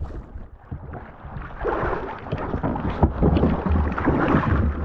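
Kayak bumping and scraping with water splashing around it while someone struggles to climb in, with wind rumbling on the microphone.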